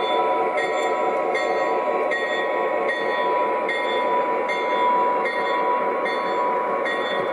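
O gauge three-rail model diesel locomotive running slowly, its onboard electronic sound system playing a diesel engine sound: a steady hum with a pulse that repeats about every three-quarters of a second.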